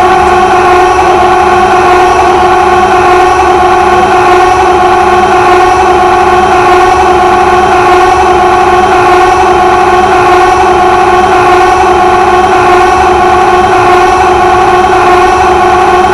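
Many looped copies of Carl Wheezer's 'ahhh' voice clip from Jimmy Neutron stacked on top of each other, merged into one loud, steady, unchanging drone of a held pitched voice.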